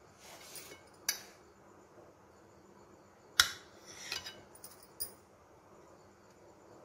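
Table knife clicking and scraping against a ceramic plate while slicing a cake. There are a few light, sharp clicks, the loudest about three and a half seconds in, with a short scrape right after it.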